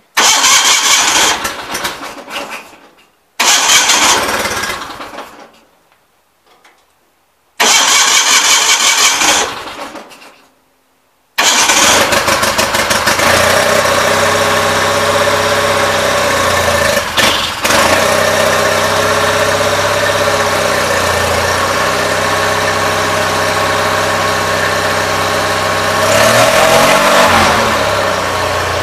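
Gravely 817 garden tractor's engine being started through its newly installed muffler: three short cranking tries that each die away, then it catches about 11 seconds in and runs steadily. The revs rise briefly near the end.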